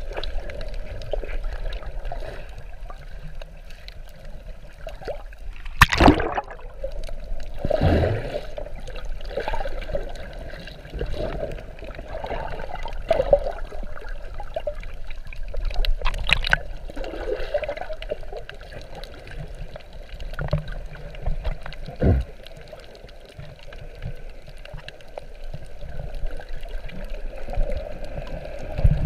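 Muffled water gurgling and sloshing, heard through a GoPro held underwater, swelling and fading. A few sharp knocks or splashes break in, about six, sixteen and twenty-two seconds in.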